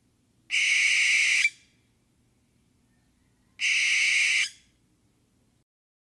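Two screeches of a barn owl from a reference recording, each about a second long and about three seconds apart.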